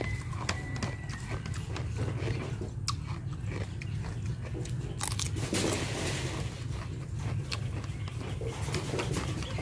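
A person chewing raw cucumber and pork fat close to the microphone, with crunching and many small mouth clicks and a denser crunch about halfway through, over a steady low hum.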